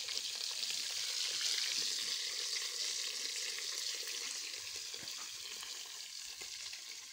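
Food frying in hot cooking oil in a pan: a steady sizzle that eases off a little near the end.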